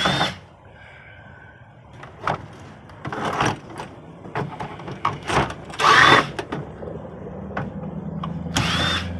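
Screws being backed out of the plastic casing of a Verifone Ruby 2 POS terminal: a series of short squeaks, scrapes and clicks, the loudest about six seconds in.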